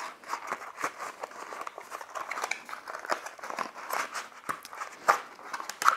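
Cardboard packaging and a braided cable being handled, pulled and shifted: a continuous run of small rustles, scrapes and clicks, with a few sharper knocks.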